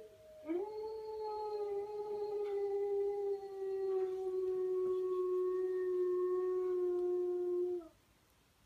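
A dog's single long howl, held at a nearly steady pitch for about seven seconds and sinking slightly lower before it stops abruptly; it is most likely a recording being played to the listening dog.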